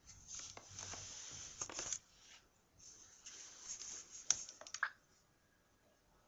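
A sleeping Labrador retriever snoring: two long, hissy breaths of about two seconds each, with a short gap between them. Three sharp clicks come near the end of the second breath.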